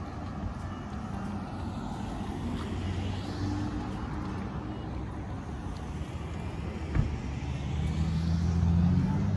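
Street traffic: cars idling and driving through an intersection, with one sharp knock about seven seconds in. Near the end a vehicle engine grows louder, its pitch rising slightly as it pulls away close by.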